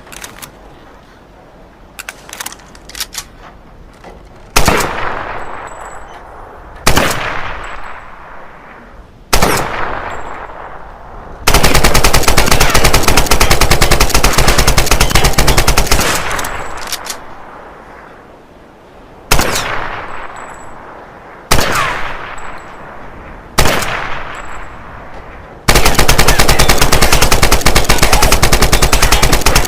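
AK-47 rifle firing: a few light clicks, then three single shots a couple of seconds apart, each trailing off over a second or two. A long full-automatic burst of about four and a half seconds follows, then three more single shots and a second full-automatic burst near the end.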